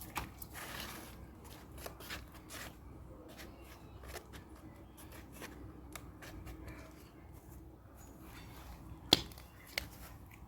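Scattered rustling and light scraping from hands-on garden work with the plastic edging and soil, broken by short clicks, with one sharp click about nine seconds in and a smaller one just after.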